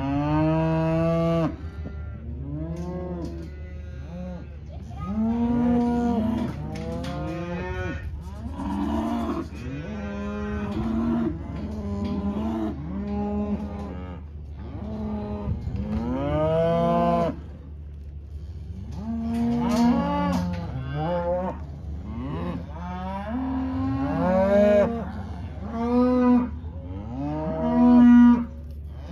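A pen of black cows and calves mooing and bawling over one another, one long call after another with hardly a pause and the loudest calls near the end: cow-calf pairs calling as the calves are sorted off from their mothers.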